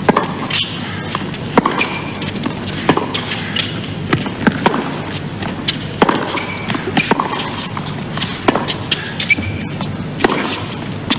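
Tennis rally: racket strikes on the ball, sharp knocks about every second and a half, with ball bounces and short shoe squeaks on the hard court in between.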